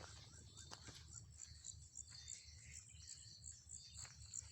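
Faint chorus of insects chirping in steady high pulses, over a low rumble.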